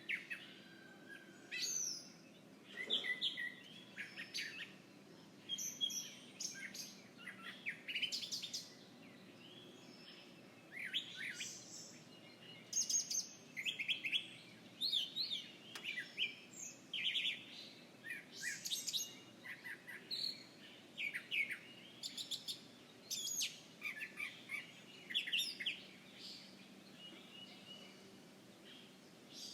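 Several songbirds chirping outdoors: frequent short, high chirps and quick trills, some overlapping, over a faint steady background hum, thinning out near the end.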